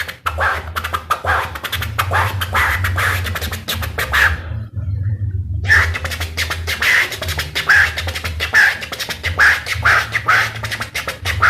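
Beatboxed vocal scratching: rapid mouth clicks and squeaks imitating a DJ scratching a record, over a steady low bass, in two runs with a break of about a second near the middle.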